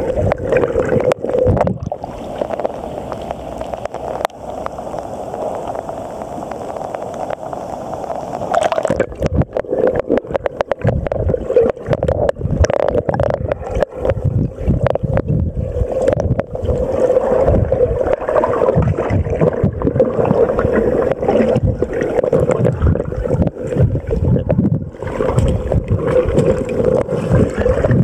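Water churned by a swimmer, heard through a camera held underwater: muffled rushing and gurgling with many knocks and bumps on the camera, busier and louder from about nine seconds in.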